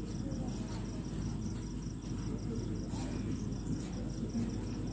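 Insect chirping in an even high-pitched pulse, about seven chirps a second, over a steady low hum and a faint murmur of distant voices.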